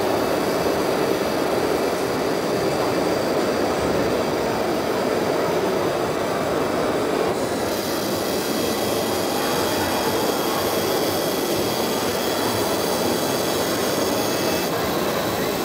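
Steady whirring of small motors and gears running, with a thin high whine that shifts about halfway through and again near the end.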